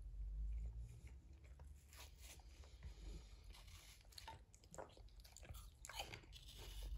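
A person chewing and crunching food close to the microphone, with scattered small clicks and crunches and a low rumble in the first second.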